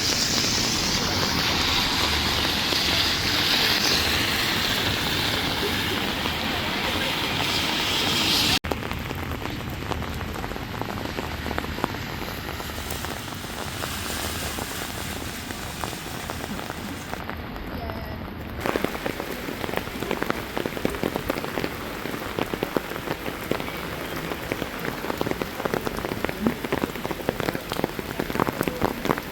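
Steady rain falling on hard surfaces, with abrupt changes about a third and two thirds of the way in. In the last part many separate drops tick sharply.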